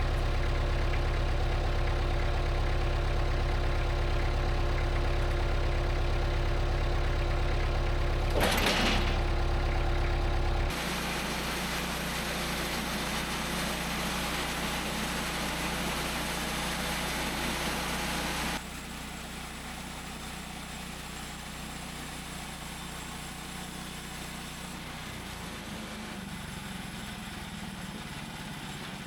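Engine of a Mech Maxx band sawmill running steadily with a low, even hum, with one sharp knock about eight seconds in. The level drops abruptly twice, to a quieter steady run.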